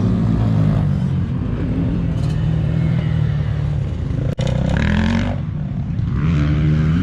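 Motocross dirt bike engines revving and accelerating on the track, the pitch rising and falling as the riders work the throttle; the sound drops out for an instant about four seconds in.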